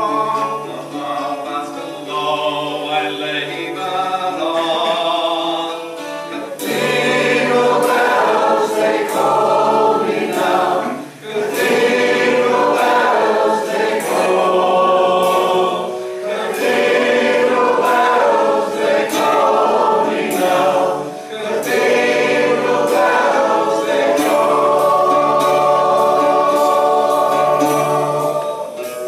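A group of voices singing a folk-song chorus together. About six seconds in, the singing gets louder and strummed guitar joins.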